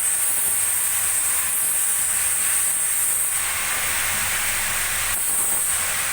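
A steady, loud hiss, strongest high up, with a faint low hum underneath.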